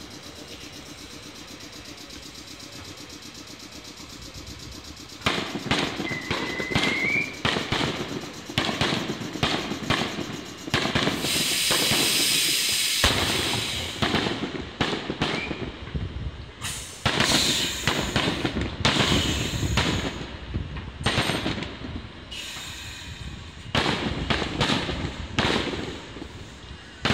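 Fireworks bursting in quick succession, with repeated sharp bangs and crackling from about five seconds in. There is one short rising whistle soon after the bangs begin, and a loud hissing crackle lasting about two seconds near the middle. Before the bangs begin, a steady mechanical hum from a red Meitetsu electric train standing at the platform.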